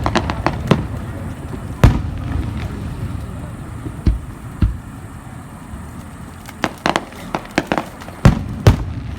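Aerial fireworks bursting: a series of sharp bangs at uneven intervals over a low rumble, the loudest about two seconds in and a pair near the end.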